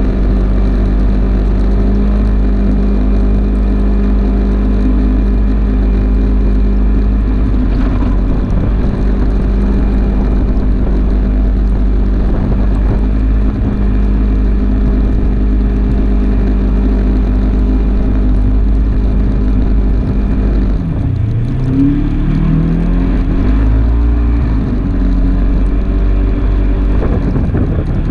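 Polaris RZR 570 side-by-side's single-cylinder engine running steadily under way. About three quarters of the way through its pitch drops, then climbs back up in a couple of quick revs before settling again.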